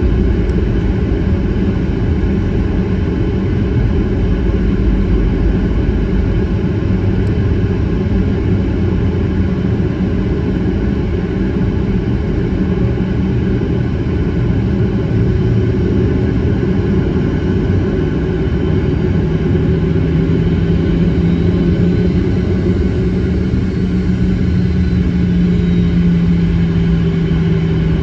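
Airliner cabin noise while taxiing: the engines running at low power and the aircraft rolling make a steady low rumble. A steady low hum joins about two-thirds of the way through and fades near the end.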